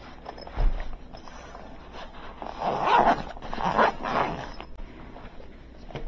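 Zipper on a soft fabric carrying case being pulled open in a few rough strokes around the middle, after a soft thump about half a second in.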